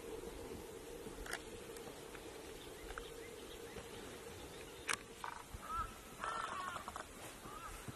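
Faint bird calls in short wavering notes from about five and a half seconds in, with a few sharp clicks before them.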